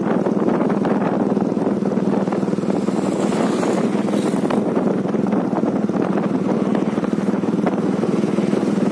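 Motorcycle engine running at a steady cruising speed while riding along a road, with wind rushing over the microphone.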